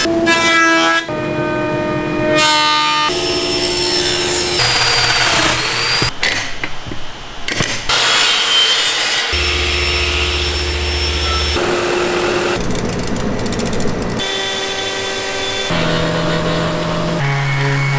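Woodworking power tools running in a quick series of short clips, the sound switching abruptly every second or two from one machine's steady whine or hum to the next. The machines include a thickness planer, a miter saw cutting a board and a detail sander on a wooden board.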